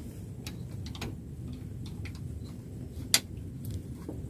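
Scattered sharp metallic clicks from an Allen key working the screws of an ABS-coated iron pipe stand while they are tightened, the loudest about three seconds in.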